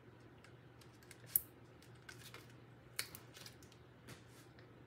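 Hands handling small paper pieces and foam adhesive dimensionals on a craft table: faint scattered ticks and taps, with two sharper clicks about a second and a half and three seconds in.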